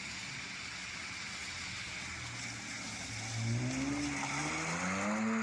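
A car engine running steadily, then accelerating from a little past halfway, its pitch rising as it revs up.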